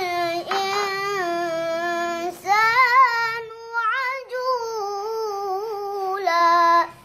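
A boy reciting the Quran in a melodic tilawah style, holding long ornamented notes in two drawn-out phrases with a short breath between them, then stopping abruptly just before the end.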